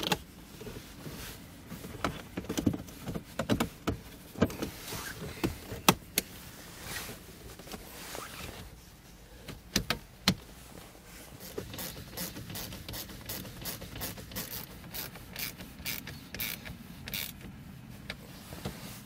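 Plastic dashboard trim and the radio panel being handled and pressed back into place, giving scattered knocks, snaps and rattles. In the second half there is a run of quick clicks from a small ratchet tightening a dash fastener.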